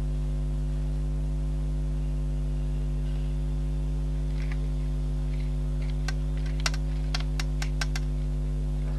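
Steady low electrical mains hum. Between about six and eight seconds in comes a quick run of about seven small sharp clicks as hands press glued threads down onto a paper tag.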